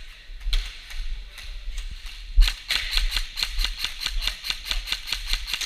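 Airsoft gun firing: a few single shots, then from about two and a half seconds in a rapid, even string of shots at about eight a second.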